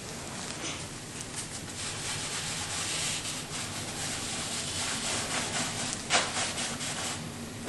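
Wide paintbrush scrubbing paint onto a canvas in repeated back-and-forth strokes, with one sharper stroke about six seconds in.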